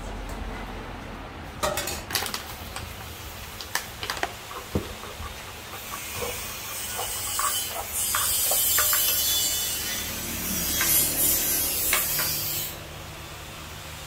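Pestle and spoon knocking irregularly against clay som tam mortars. About six seconds in, a loud hissing rustle takes over for several seconds and then stops suddenly.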